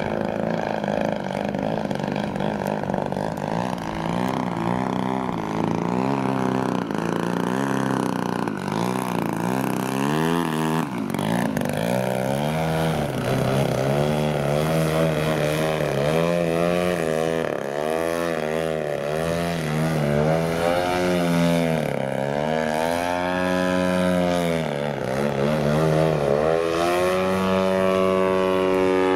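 Large radio-controlled airplane's motor and propeller running in flight. Its pitch swings up and down every couple of seconds through the second half, then holds steady near the end.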